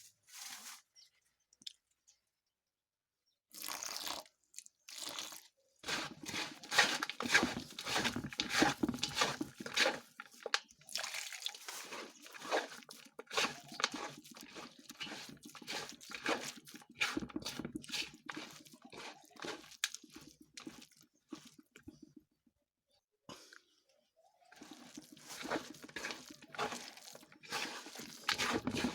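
Crunchy slime being worked, giving dense runs of crackling, crunching pops with a wet edge. The crackling starts about three and a half seconds in, stops briefly a little over twenty seconds in, then resumes.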